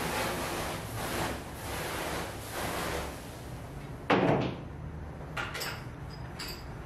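Water hissing from a garden-hose spray nozzle sprayed into a clay tandoor, stopping about three seconds in. About a second later comes one loud knock, followed by a couple of lighter clicks.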